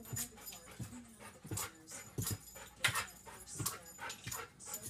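Excited dog whimpering and panting while jumping about, with irregular short thumps and scuffs.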